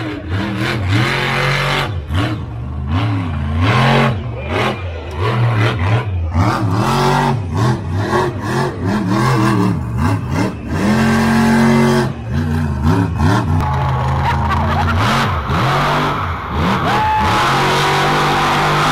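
Monster truck engines revving hard, their pitch climbing and dropping again and again as the throttle opens and closes. Near the end an engine holds a steadier, higher note.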